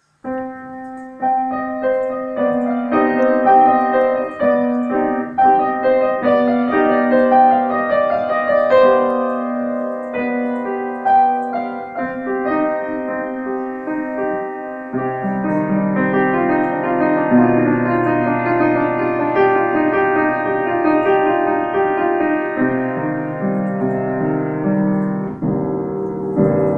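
Piano music: single notes and chords struck and left to ring, with lower bass notes joining about halfway through.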